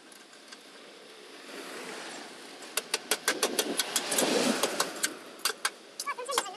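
A hammer tapping a small steel patch plate against a car's body sheet metal to fit it before gas welding: a fast run of sharp metallic taps, about five a second, starting about three seconds in.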